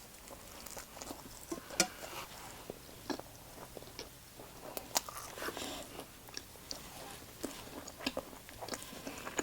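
Close-miked chewing and biting of food, with irregular wet mouth clicks and smacks; two sharper clicks stand out about two and five seconds in.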